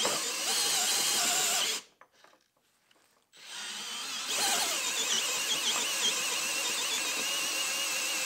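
Makita 18V brushless drill driver running at low speed with a 1.5-inch self-feed spade bit in timber. It stops for about a second and a half, then starts again and runs steadily under load while backing the bit out of the bored hole.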